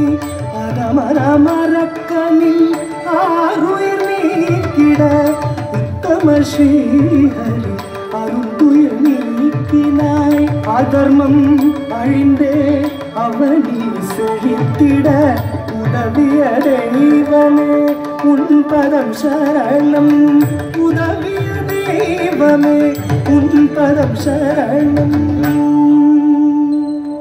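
Carnatic music accompanying classical dance: a winding melodic line with long held notes over rapid hand-drum strokes.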